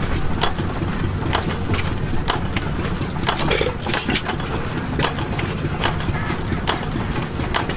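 Antique hit-and-miss gas engines running, firing in sharp, irregularly spaced exhaust pops about once a second over a low steady engine rumble.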